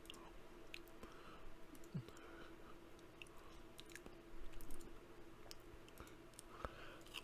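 Faint, scattered mouth clicks of someone quietly chewing potato chips, over a low steady hum.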